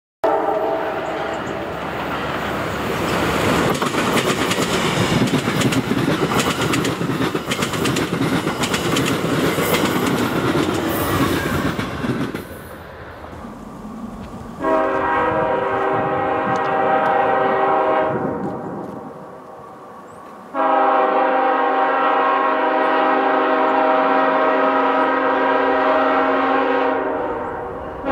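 Amtrak Downeaster passenger train on the rails: a loud rush of wheels with sharp clicking for about the first twelve seconds, fading out. Then the train's multi-tone air horn sounds two long blasts, the second about twice as long as the first, and a third begins at the very end.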